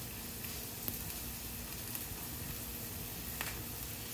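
Chopped onion frying in hot oil in a nonstick frying pan: a soft, steady sizzle, the little noise of the onion sweating before it takes colour. Two faint taps sound over it, about a second in and again near the end.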